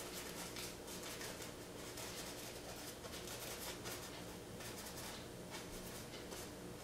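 Paintbrush dabbing and scratching oil paint onto canvas in short, irregular strokes, a couple a second, over a steady low hum.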